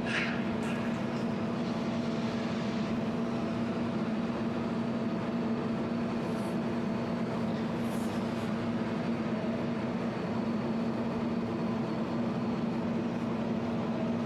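Steady hum of a jewelry laser welding machine running, with one low tone held throughout and a few faint ticks.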